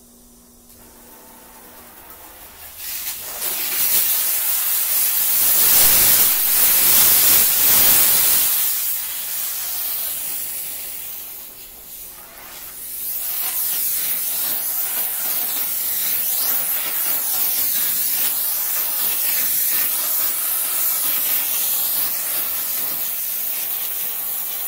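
VaporChief 125 steam cleaner's nozzle jetting steam mixed with injected no-rinse chemical onto a car's paint: a loud, steady hiss. It builds up a couple of seconds in, eases off briefly about halfway, then comes back and holds steady.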